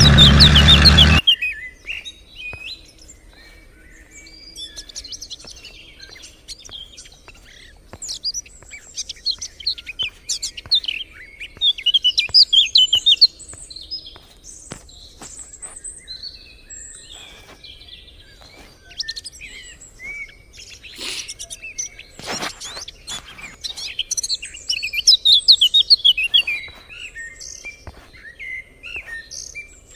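Small birds chirping and twittering in scattered bursts. In the first second a vehicle engine runs, then cuts off abruptly.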